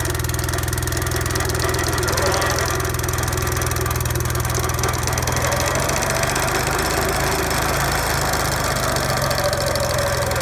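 Classen SC-18 sod cutter's small gasoline engine running steadily under load as the machine is pushed through turf, with a fast, even rattle from the cutting drive; its tone shifts a little past the middle.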